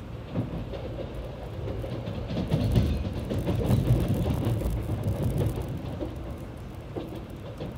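Tokaido Shinkansen running, heard from inside the passenger cabin: a steady low rumble of the moving train with faint clicks. It swells louder for a few seconds in the middle, then eases again.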